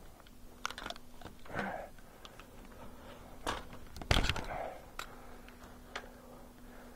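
Gloved hands handling plastic maple sap tubing and black mainline pipe: scattered clicks and knocks with glove and clothing rustle. The loudest knock comes about four seconds in.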